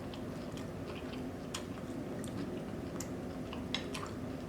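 Close-miked chewing of food, with a few soft, sharp wet mouth clicks spaced out through it.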